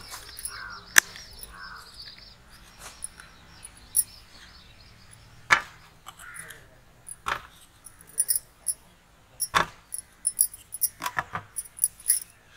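Plastic ice-pop moulds being handled. Their snap-on lids with wooden sticks are pressed onto the cups, and the cups knock on a steel tray, giving a few sharp clicks a second or two apart and a light plastic clatter.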